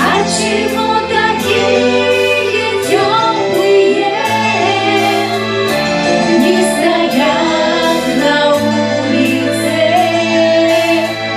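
A song with a singer's voice carrying a wavering melody over an instrumental accompaniment of held bass notes and a regular beat.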